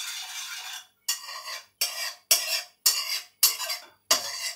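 A spoon stirring and scraping dark sauce around a wok-style pan in quick, regular strokes, about one every half-second or so.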